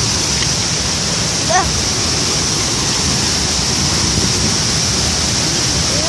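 Steady, loud rush of a waterfall.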